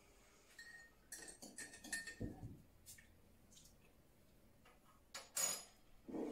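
Mug and spoon clinking and knocking on a kitchen countertop while a hot drink is made. A cluster of small clinks and taps comes in the first two seconds, a few light ticks follow, and a louder ringing clatter comes about five seconds in.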